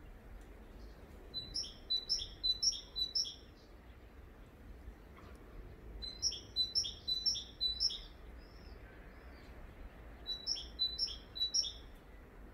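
A songbird singing three short phrases a few seconds apart, each a quick run of four to six repeated high two-part notes.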